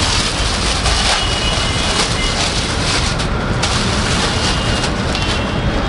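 Plastic wrapping crinkling and rustling as a saree is pulled out of a plastic-packed bundle of sarees, over a steady low background rumble.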